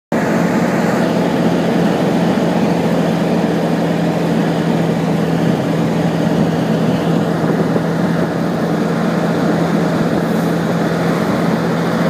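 Steady drone of the engine of the vehicle the camera rides in, heard from its cab, with a constant low hum that does not change.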